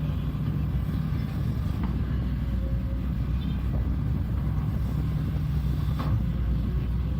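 Shantui excavator's diesel engine running steadily at work, a low even hum, with a couple of faint knocks.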